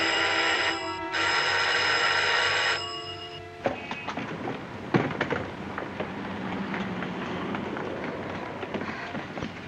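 Old electric telephone bell ringing, unanswered: one ring, a short break, then a longer ring that stops about three seconds in. After it come scattered knocks and clicks over a low engine hum.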